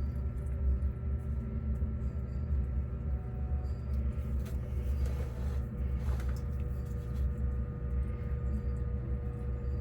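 Steady low mechanical rumble with faint steady tones above it, and a brief rustle of noise around the middle.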